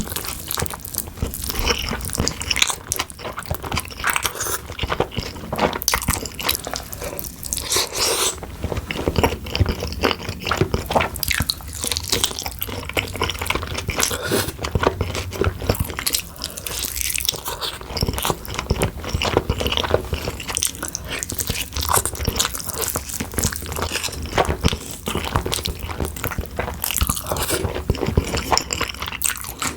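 Close-miked eating of a saucy oyster dish: a continuous run of crunchy bites and wet, saucy chewing.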